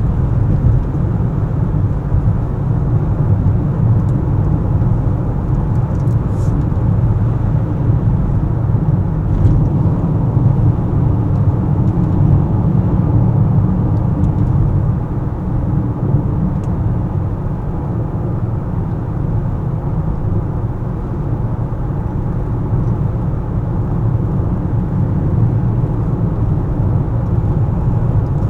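Car driving: a steady low rumble of engine and tyre noise on the road, with a few faint clicks.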